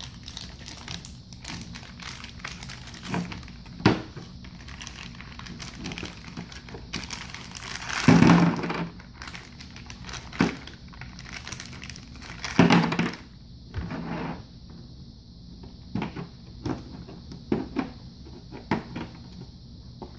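Clear plastic packaging crinkling and rustling as a Play-Doh set is unwrapped by hand, with scattered light knocks of plastic Play-Doh tubs set down on a plastic table. Two louder bursts of handling noise come about 8 and 12 seconds in.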